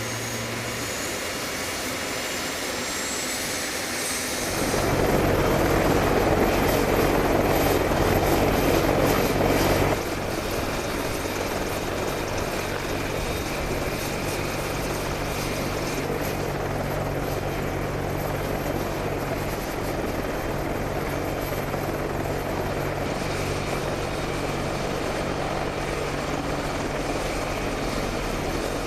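AH-64D Apache Longbow attack helicopter running, its rotors and turbines giving a steady beating drone, with a high whine rising slowly in pitch over the first few seconds. It gets suddenly louder from about four seconds in, then drops back abruptly at about ten seconds and stays steady.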